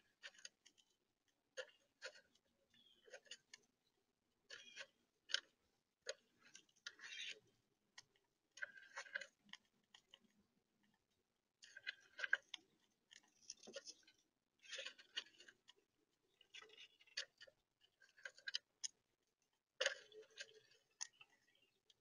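A squirrel chewing food right at the microphone: irregular clusters of crisp clicks and crunches, coming every second or two.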